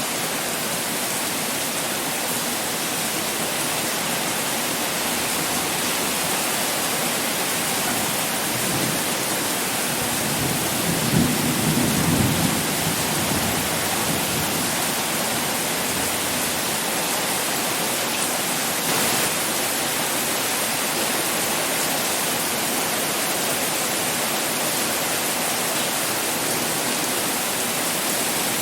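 Heavy rain pouring steadily, a dense even hiss. A low rumble of thunder swells and fades about ten seconds in, the loudest moment.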